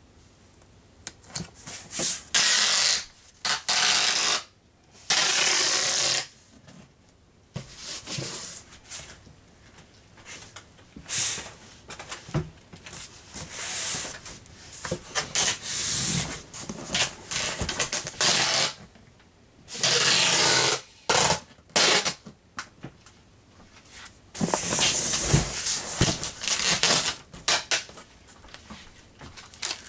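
Packing tape pulled off a handheld tape-gun dispenser in loud rasping runs as it is laid across a cardboard box, several times over, with hands rubbing the tape down and an occasional knock of the dispenser against the box.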